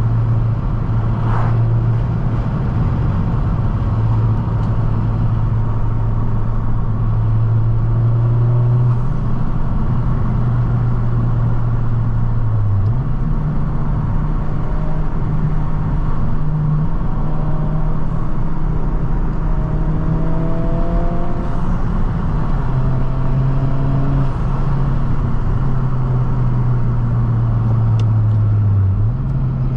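11th-gen Honda Civic Si's 1.5 L turbocharged four-cylinder running through a MAPerformance aftermarket exhaust, heard from inside the cabin with a rear window down. A steady low exhaust drone under way that jumps in pitch about a third of the way through, rises again a little later, and drops in steps near the end as the engine speed changes.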